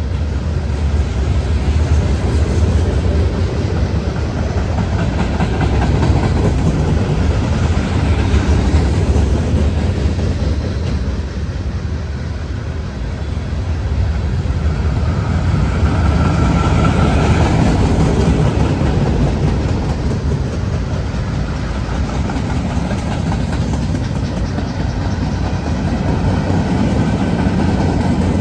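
CSX manifest freight train rolling past on the rails, a steady continuous noise with a heavy low rumble.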